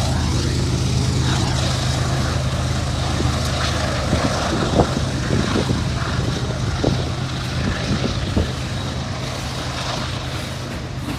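Diesel-electric freight locomotives of a departing train running with a steady, deep engine drone, with a few brief sharp sounds over it. The sound eases slightly toward the end.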